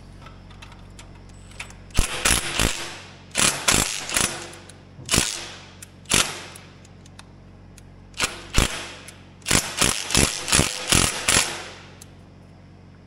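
Cordless impact driver hammering in a string of short bursts with pauses between, working a corroded quarter-inch steel bolt out of the cast aluminum head of a Kohler K-Series engine.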